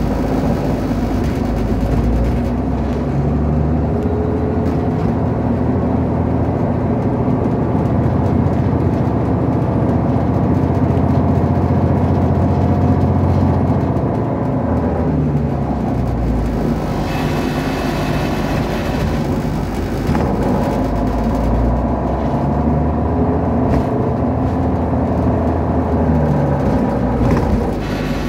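City transit bus engine and drivetrain heard from inside the passenger cabin while the bus drives along. The engine note rises and drops several times as the bus speeds up and changes gear.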